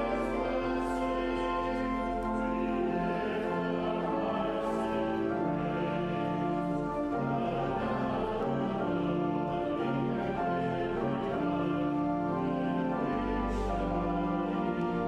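Slow church hymn music with long held chords that change every second or so.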